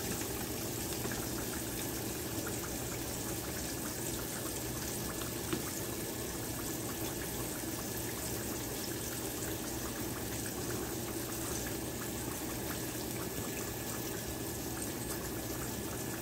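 Flour-coated summer squash pieces deep-frying in hot oil in a cast iron skillet: steady sizzling and bubbling with many fine crackles.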